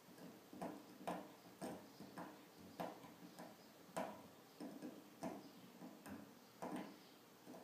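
A cat gnawing on the metal drawer handle of a filing cabinet, its bites making sharp clicks about twice a second.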